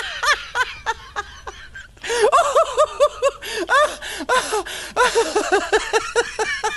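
A person laughing in runs of short, high 'ha' bursts, several a second, with a brief lull about one and a half seconds in before the laughter picks up again.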